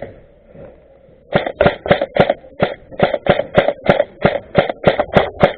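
A steady drum beat, about three evenly spaced strikes a second, which starts a little over a second in after a quieter moment.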